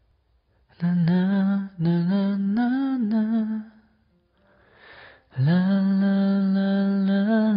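One voice humming a slow, wordless melody: a couple of short phrases with small pitch turns, a short pause, then one long held note.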